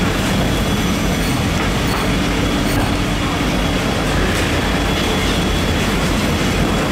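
Loud, steady fish-market background noise: a continuous low rumble with a faint steady hum.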